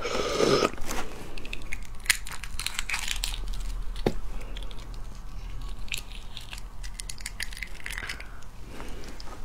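Close-miked crackling and crunching of eggshell being cracked and peeled off a boiled fertilized egg (huozhuzi), with eating sounds mixed in: a string of small sharp cracks and clicks.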